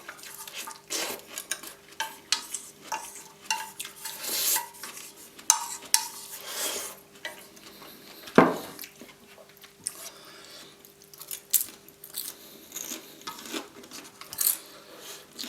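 Cutlery scraping and clinking against a plate as the last of the fried noodles are scooped up from it, a run of short irregular clicks and scrapes with one sharper clack a little past halfway.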